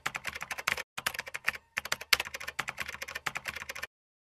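Rapid computer-keyboard typing clicks, a typing sound effect to text being typed out, with two brief pauses; it stops abruptly near the end.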